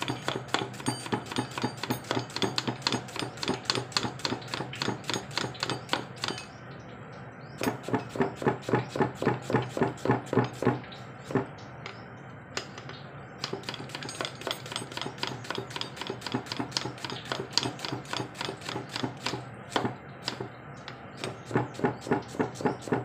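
Kitchen knife chopping onion on a thick round wooden chopping block: quick, even taps of the blade on the wood, about five a second, with short pauses about a quarter of the way in and around the middle.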